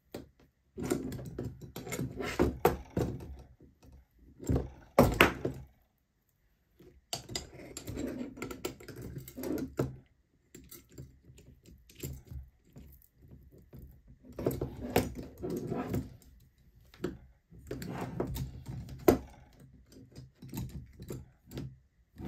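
Small metal parts being handled: clinks, knocks and rattles as a bolt is taken off and a roller arm is fitted to the frame, in bursts with short pauses between.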